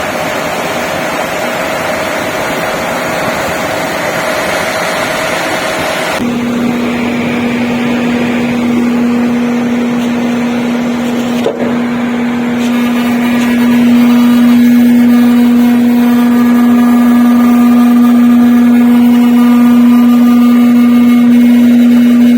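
Carrier 8-ton ductable air conditioner running: a rush of air at first, then from about six seconds in a loud steady hum with overtones that grows louder again later. This is the humming noise the unit makes when fully closed up with its water tray fitted, which senior technicians put down to the motor, though this technician suspects something in the body panels.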